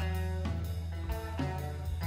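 A live band playing electric guitar and drum kit. A low note is held throughout under short higher guitar notes, with drum strikes roughly every half second.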